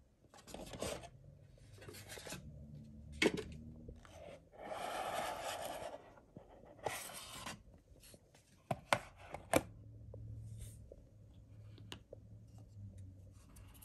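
Hands handling a gaming mouse's cardboard box and its plastic inserts: cardboard sliding and scraping, with one longer scrape of about a second and a half near the middle, soft rustles, and a few sharp clicks and taps.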